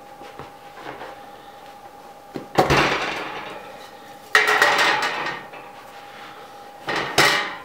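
A metal baking pan and wire cooling rack clanking together as a loaf of bread is turned out onto the rack: three sharp knocks, a little over two seconds in, at about four and a half seconds, and near the end, each ringing briefly.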